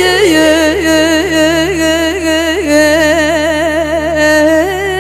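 A solo voice singing a Turkish folk song, holding one long drawn-out vowel with fast wavering ornaments. The pitch steps down near the start and climbs back up twice later, over a steady low hum.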